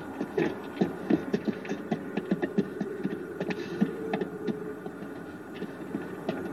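Horses' hooves clopping at a walk on hard dirt, mixed with the men's footsteps: uneven knocks, a few each second.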